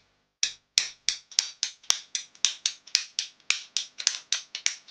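Pipe cutter cutting through PEX pipe: a quick series of sharp clicks, about four or five a second, coming slightly faster near the end.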